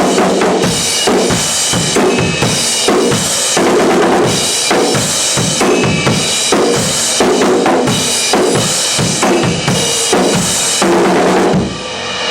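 Acoustic drum kit played loudly in a steady rock beat, with kick drum and snare hitting in a regular rhythm. The playing stops about a second before the end, leaving a quieter ringing tail.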